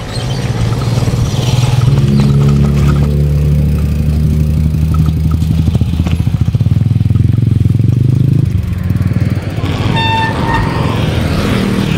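Small motorcycle engine running steadily under the rider, its low note dropping away about two-thirds through as the bike slows. A short horn toot sounds near the end.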